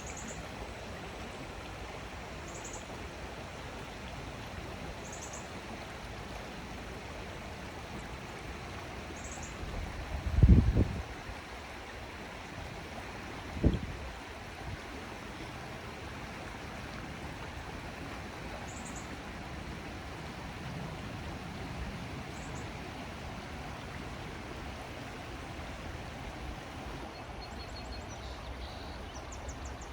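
River water flowing steadily, with a small bird giving short high chirps every few seconds and a quick trill near the end. Two brief low thumps, about ten and fourteen seconds in, are the loudest sounds.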